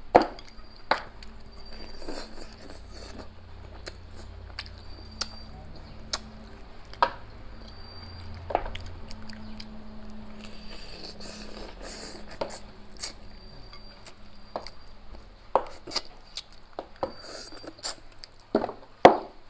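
Close-up eating sounds: wooden chopsticks clicking and scraping against a plate, with mouth sounds of chewing and sucking meat off fish bones. The sharp clicks come irregularly, with the loudest at the start and a cluster near the end.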